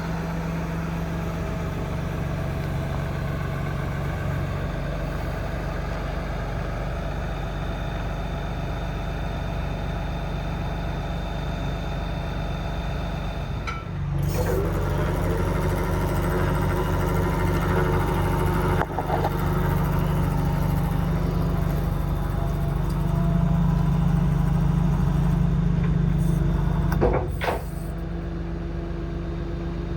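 Cummins 8.3 diesel running steadily in a service truck while powering its crane hydraulics. About halfway through, the sound rises and grows louder and busier as a crane function is operated, with a brief upward glide at the start. It drops back to the plain running note a few seconds before the end.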